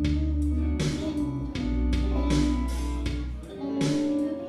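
Background music with guitar over bass notes and a steady beat.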